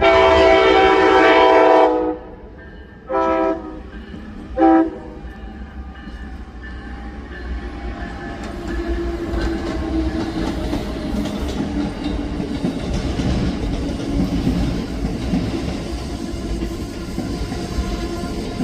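Amtrak passenger train's locomotive horn: one long blast of about two seconds, then two short blasts. The train then rolls in, its rumble and wheel-on-rail noise building and holding steady.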